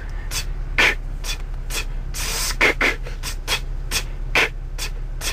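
Beatboxing: a steady beat of short, sharp hissing strokes made with the mouth, about two or three a second, over a low steady hum.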